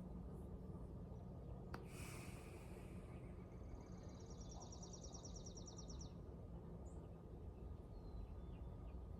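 Faint outdoor ambience: a steady low rumble, with a bird giving a rapid high trill for about two seconds near the middle and a brief high call just before it.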